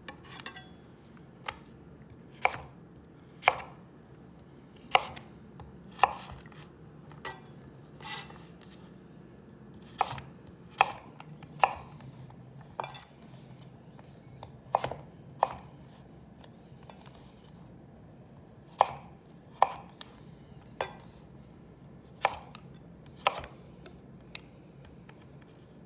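Chef's knife cutting carrot planks into strips on a wooden cutting board: single sharp knocks of the blade meeting the board, about one a second, unevenly spaced, with a few longer pauses.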